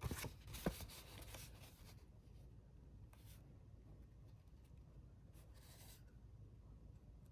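Faint rustling and scraping of paper and stationery being handled, with a quick flurry of small sharp rustles in the first two seconds. After that come only a few brief rustles, about three seconds in and again around five and a half seconds.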